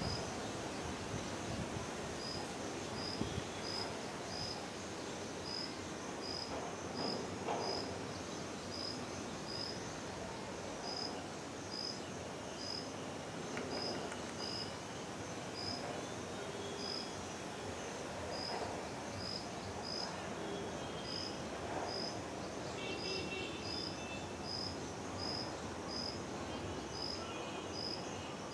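Insect chirping: short, high-pitched chirps repeated about two a second, with a few brief pauses, over a steady outdoor background hiss.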